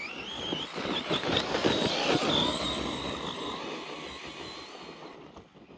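Redcat Kaiju EXT RC monster truck's brushless electric motor whining as its pitch shifts with the throttle, over tyres churning dirt. It is loudest a second or two in, then fades as the truck drives away.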